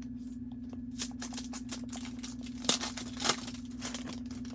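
Foil wrapper of a trading card pack crinkling and tearing open, with quick crackles and a couple of louder rips in the middle. A steady low electrical hum runs underneath.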